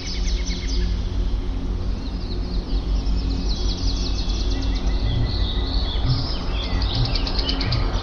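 Birds chirping in quick, high trilled series, busier from about three seconds in, over slow ambient music with low sustained tones.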